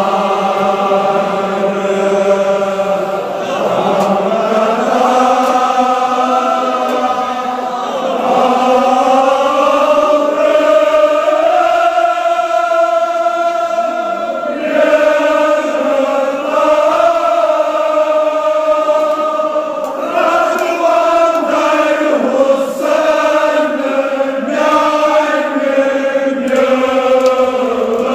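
Men's voices chanting a Kashmiri marsiya, a mourning elegy, in long drawn-out notes that slowly rise and fall in pitch.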